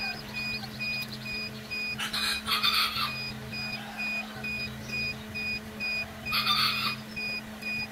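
Domestic chicks peeping, with two short bursts of scratchy rustling about two and six and a half seconds in, over a rapid electronic beeping that repeats steadily and a low steady hum.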